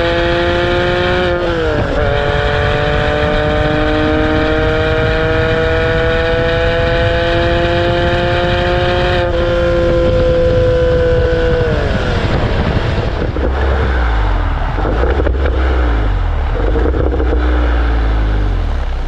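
Stock Porsche 997 Carrera S 3.8-litre flat-six pulling under acceleration, with a quick drop in pitch at a gear change about a second in, then a long, slow climb in revs. About twelve seconds in the engine note falls away as the throttle comes off, leaving a low rumble with road and wind noise.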